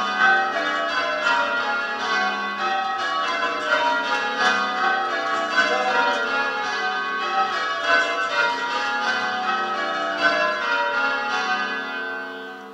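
Church bells change ringing: a ring of tower bells struck one after another in a steady, ever-changing order, the notes overlapping and ringing on. The ringing dies away near the end as the bells stop.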